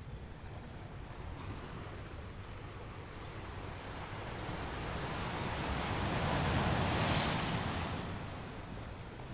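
Sea surf: a steady hiss of water that swells into one long wave wash, peaking about two-thirds of the way through, then recedes.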